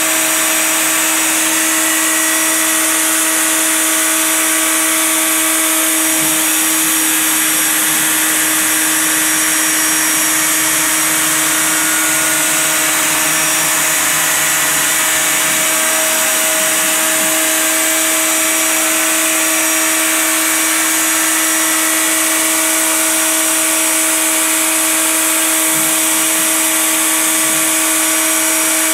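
CNC router spindle running steadily with a high whine and hiss while a single-flute 1/8-inch end mill cuts through 1/4-inch black ABS plastic, run at low spindle speed and a fast feed to keep the plastic from melting. A lower hum joins for about ten seconds in the middle.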